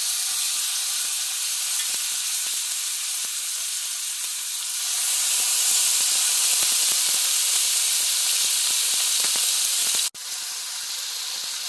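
Bison short ribs searing in hot olive oil in a cast iron skillet: a steady sizzle with fine crackling. It grows louder about five seconds in, breaks off for an instant near the end, and carries on a little quieter.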